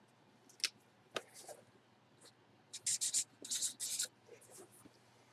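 Hands handling plastic packaging: two light clicks under a second in, then several short scratchy rustles about three seconds in.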